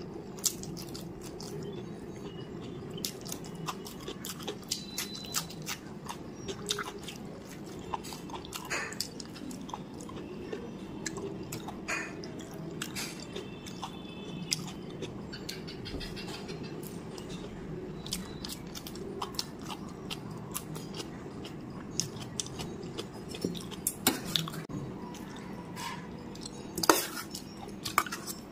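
Close-miked chewing: wet mouth clicks and smacks from eating rice and fried pointed gourd by hand, with a steady low background hum. Near the end come a few louder sharp clinks as a spoon scrapes chicken curry from a metal bowl.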